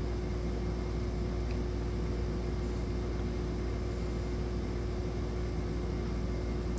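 Steady background hum and hiss with one constant tone running through it: continuous room or appliance noise, with no change or event.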